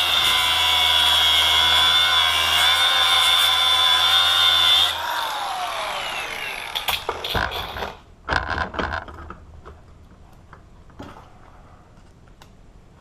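A power tool runs with a steady high whine, working the rivets off a padlock body, then is switched off about five seconds in and winds down in falling pitch. A few sharp knocks and clatters of metal parts follow.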